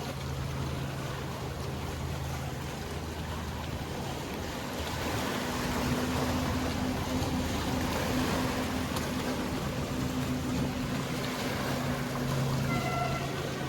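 Steady low hum of boat engines over the wash of sea water. A second, higher engine tone joins about five seconds in and stops shortly before the end, where a short high-pitched sound is heard.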